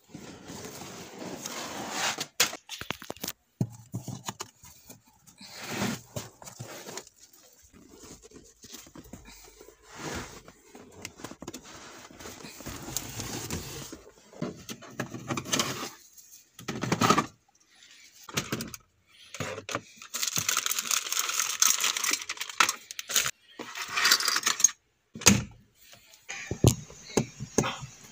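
Hands rummaging over a Kia Picanto's fabric seats and plastic trim, clearing the car out: rustling, scraping, crinkling and clicks that come and go irregularly, with a longer stretch of dense rubbing or tearing about three quarters of the way through.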